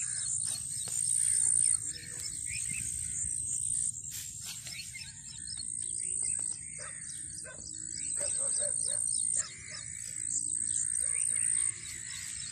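Birds chirping and calling over a constant high-pitched buzz that steps louder and softer every second or two, with a low rumble underneath.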